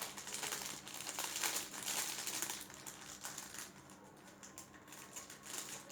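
Packaging crinkling and rustling in the hands as a wristwatch is unwrapped, in small irregular crackles that thin out in the middle.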